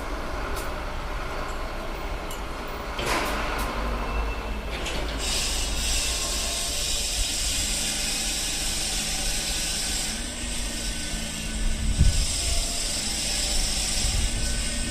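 Heavy machine engine running with a steady low rumble. A steady hiss joins about five seconds in, and there is a low thump near the end.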